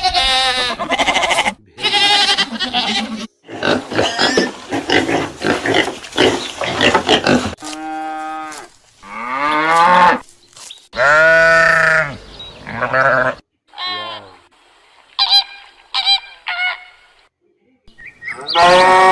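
Farm animal calls heard one after another in a string of short clips, with abrupt changes and brief silences between them.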